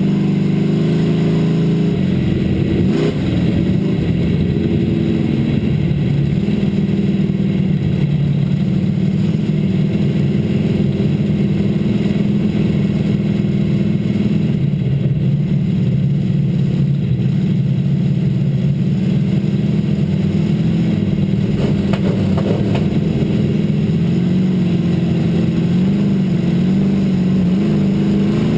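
Dirt-track race car's engine running at fairly steady, moderate revs, heard from inside the cockpit.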